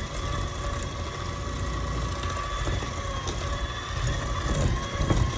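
Electric mixer motor running steadily, beating cream cheese and sugar in a bowl: an even motor hum over a low rumble.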